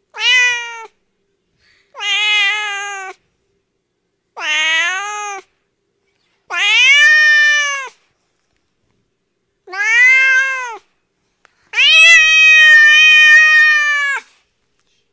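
A domestic cat meowing six times, each meow rising and falling in pitch and about a second long, with silence between them; the last meow, near the end, is held for over two seconds.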